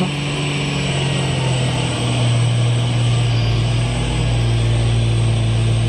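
Hino 500 tank truck's diesel engine running steadily under load as the truck drives through deep mud.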